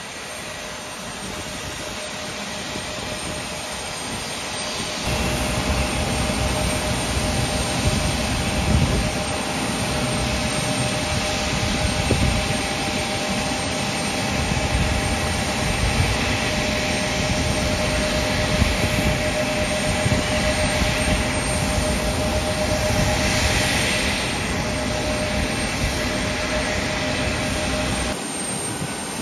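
Jet aircraft engine noise on an airport apron: a steady whine over a broad rumble that grows louder about five seconds in.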